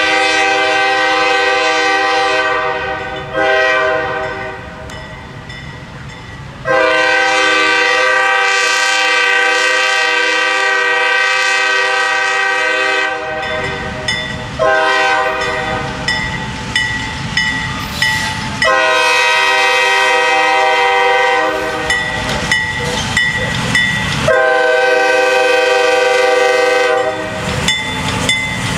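CSX diesel freight locomotive sounding its multi-note air horn in a series of long blasts with short breaks, the warning for a grade crossing, as the train approaches and rolls past. Toward the end, steel wheels click over the rail joints between horn blasts.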